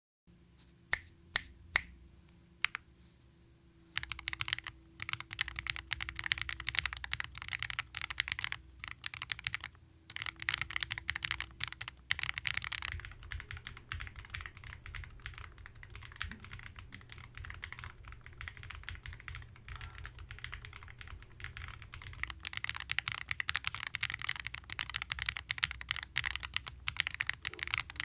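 Typing on a KBDfans D45 V2 custom mechanical keyboard with factory-lubed Roller linear switches, a PC plate and Poron gasket mounting. It starts with a few separate keystrokes, and from about four seconds in the typing turns steady and fast.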